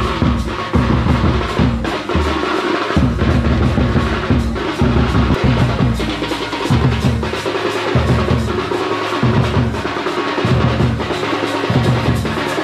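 Drums beaten fast and loud in a steady dance rhythm, a dense run of rapid strokes over heavy low thumps in repeating phrases.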